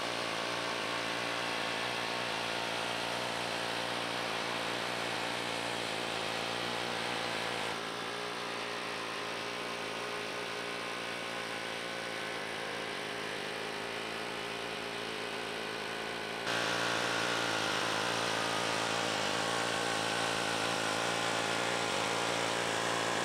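Pneumatic air hammer driving a knife blade, clamped in it like a chisel, into a vehicle's sheet-metal body panel: a steady, rapid mechanical hammering. The sound changes abruptly twice, a little quieter from about eight seconds in and louder and brighter from about sixteen seconds in.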